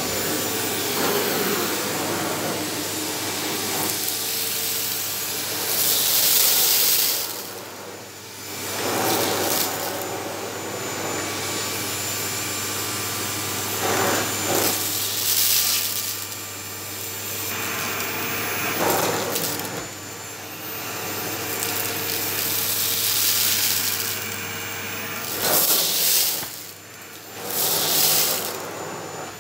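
Electrolux Silent Performer ESPC71DBT 650 W bagless vacuum cleaner running in automatic mode, its floor nozzle working over carpet. Steady motor hum and suction rush that swell and dip every few seconds.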